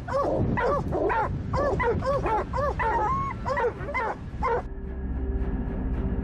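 Hunting dogs yelping and barking in quick high yelps, about three a second, stopping after about four and a half seconds. Music with long held notes takes over.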